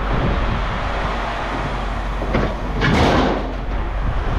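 Metal scrap being handled: a clank a little after two seconds, then a louder scraping clatter about three seconds in, over the steady hum of a running engine.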